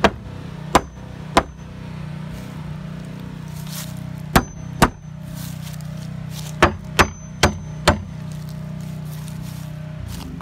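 Wooden-handled hammer striking nails into wooden fence boards: nine sharp blows in three groups, three in the first second and a half, two about four and a half seconds in, and four in quick succession around seven to eight seconds. Several blows leave a brief high metallic ring. A steady low hum runs underneath.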